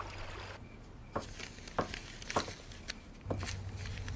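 A handful of soft knocks, roughly half a second apart. About three seconds in, a low steady hum of room tone begins.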